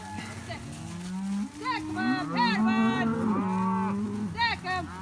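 A herd of cows and calves mooing and bawling, several animals at once, with long low moos overlapping and a few shorter, higher-pitched calls.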